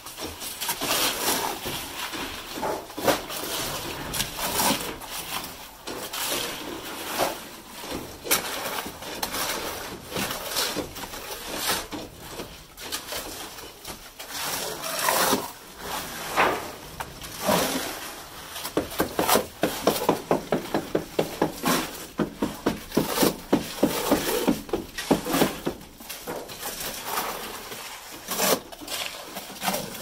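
Manual concrete work: knocks, clatter and scraping of buckets and hand tools in wet concrete, with a run of quick, regular scraping strokes through the middle.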